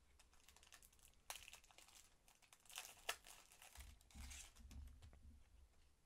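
A Topps Match Attax card packet's wrapper crinkling and tearing open in the hands, a faint run of sharp crackles with the loudest snaps about a second and three seconds in.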